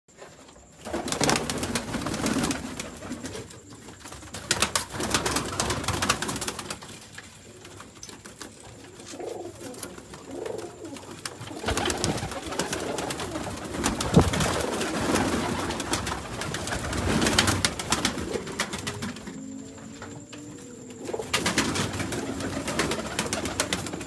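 A loft full of Sialkoti pigeons cooing, with repeated bursts of wing flapping and scuffling a second or two long.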